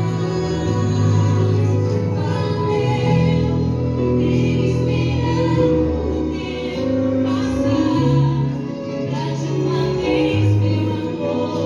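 Music with singing, a female voice carrying the melody over sustained chords.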